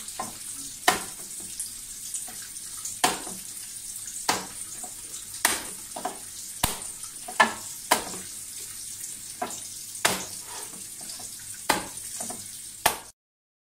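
Hands kneading and beating raw minced chicken against a plate: sharp wet slaps about every second, with softer squelching between them. The sound cuts off suddenly near the end.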